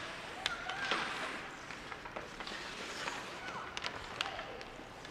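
Ice hockey play in a rink: a steady scraping hiss of skates on the ice, broken by several sharp clacks of sticks, puck and boards.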